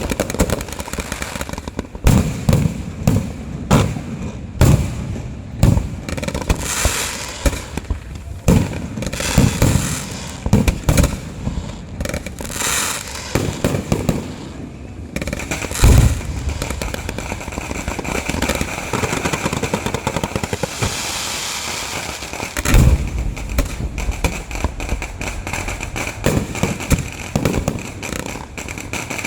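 Fireworks going off in a long, uneven run of bangs and booms with crackling between them, heaviest about 16 seconds in and again near 23 seconds.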